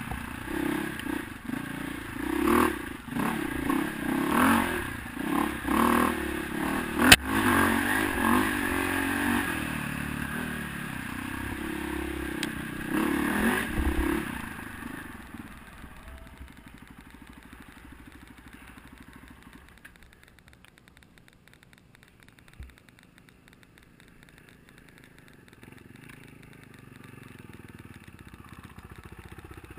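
KTM 520 MXC single-cylinder four-stroke dirt bike engine being ridden hard on a rough trail, with clatter and scraping from the bike over the dirt and one sharp knock about seven seconds in. About halfway through it falls away to a low idle as the bike stops.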